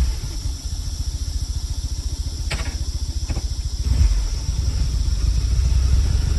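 Kawasaki W650 motorcycle's air-cooled parallel-twin engine idling with an even low pulse. There are two sharp clicks near the middle, and the engine note rises slightly about four seconds in.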